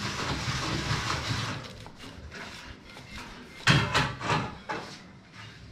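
Hands rolling and pressing momo dough on a granite countertop: soft rubbing, then a few knocks close together about four seconds in.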